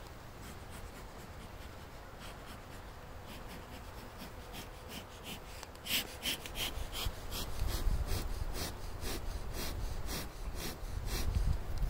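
Bee smoker's bellows being pumped: a steady run of short, airy puffs, about three a second, getting louder about six seconds in. A low rumble sits under the second half.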